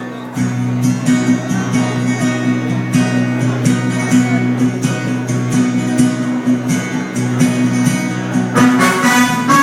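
Acoustic guitar strummed steadily in a song's instrumental introduction, played live, with fuller, brighter strumming from about nine seconds in.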